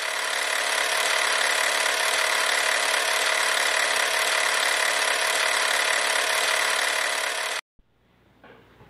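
A loud, steady, grinding machine-like noise, tagged as power tool or sawing, that holds at an even level and cuts off abruptly about seven and a half seconds in, followed by a few faint knocks.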